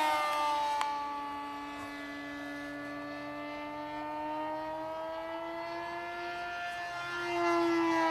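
Battery-powered electric motor of a small Depron foam RC plane whining as it flies overhead. The single steady tone sinks in pitch, then slowly rises again. It is louder at the start and again near the end as the plane passes closer.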